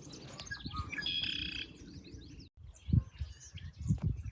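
Several songbirds chirping and calling, with a brief break in the middle and a few low thumps near the end.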